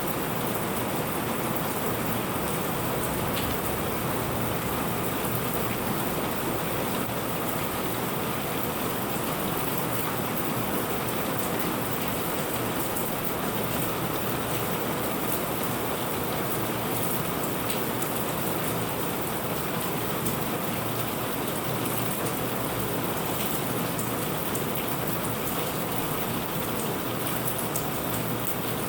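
Steady rain falling on surfaces: an even hiss with scattered sharp drop ticks.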